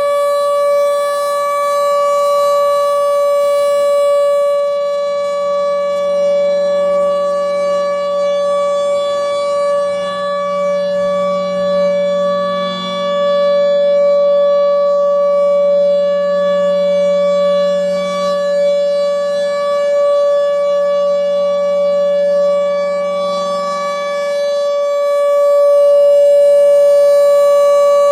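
Federal Signal Thunderbolt 1000 outdoor warning siren sounding the steady alert tone. It holds one pitch without rising or falling, and its loudness swells and eases slightly.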